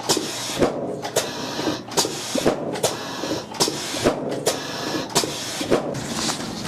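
A series of sharp knocks or clicks, about two a second, over a steady noisy background.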